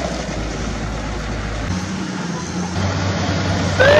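Low, steady engine-like hum from the radio-controlled toy excavator as it lowers its bucket, shifting in pitch partway through. Near the end, a short rising high-pitched squeal.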